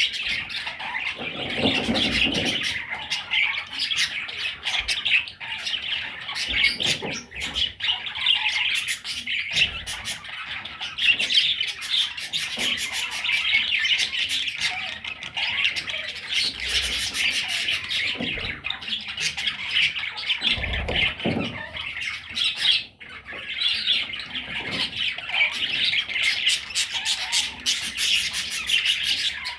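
A flock of budgerigars chattering and squawking without a break, a dense mass of rapid, overlapping chirps and warbles.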